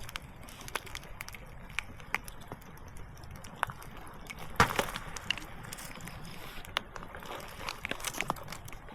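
Scattered small crackles and clicks, with one louder knock about halfway through, over a low steady background.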